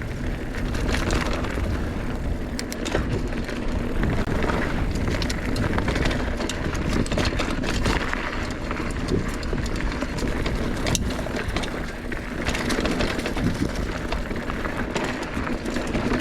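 Mountain bike riding fast down a dry dirt trail: a steady rush of tyre and trail noise with many sharp clicks and rattles as the bike goes over bumps.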